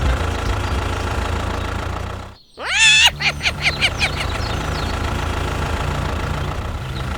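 Small engine of a DIY mini tractor running with a steady low throb. About two and a half seconds in, the sound cuts out briefly. A loud rising whoop and a quick run of short chirps follow before the steady running carries on.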